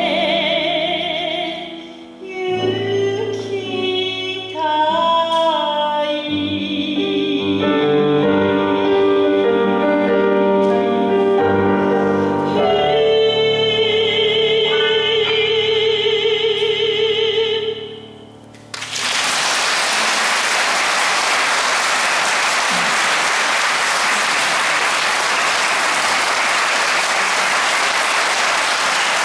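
A woman singing in a classical, operatic style with piano accompaniment, ending on a long held note with vibrato. About nineteen seconds in, the song stops and audience applause starts and continues.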